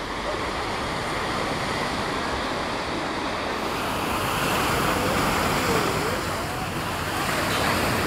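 Sea surf breaking and washing on a beach: a steady rush of noise that swells a little about halfway through, with wind on the microphone.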